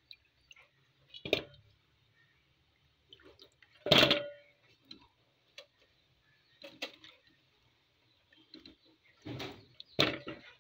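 Peeled bananas dropped one by one into a metal pot: about five separate knocks, the loudest about four seconds in, with a short ring of the pot.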